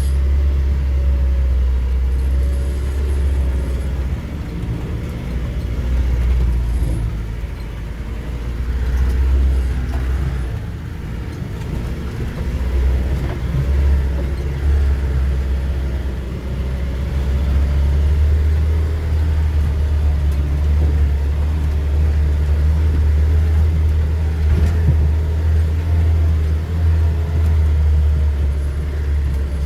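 Off-road vehicle driving, its engine a continuous low rumble that eases off a few times and then builds again.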